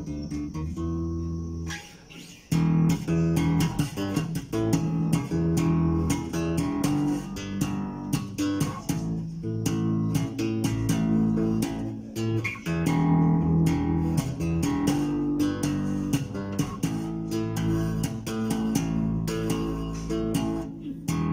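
Glarry GJazz II Jazz-style electric bass with single-coil pickups, played unaccompanied in a slap demo. A few held notes give way, after a brief drop about two seconds in, to a fast slapped-and-popped line with sharp percussive attacks.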